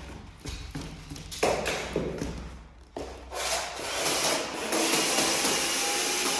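Engineered click-lock floorboards, laid without glue, crackling and clicking irregularly underfoot. About three seconds in, a steady, louder machine whir takes over.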